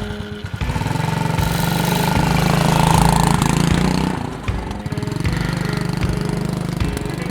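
Small four-wheeler's engine revving up as it drives off, easing back about four seconds in, then running steadily.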